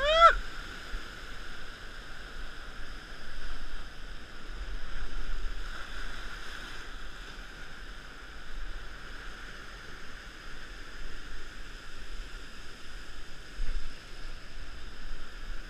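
Rough surf washing and surging over a rock ledge, a steady hiss that swells and eases every few seconds.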